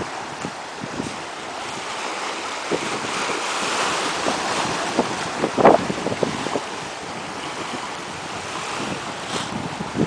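Small waves lapping and splashing against the shore in a steady wash, with short splashes throughout, the loudest about halfway through. Wind buffets the microphone.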